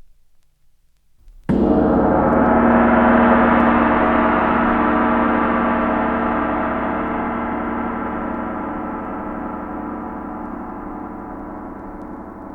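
A single gong strike about a second and a half in, its many tones ringing on and slowly dying away.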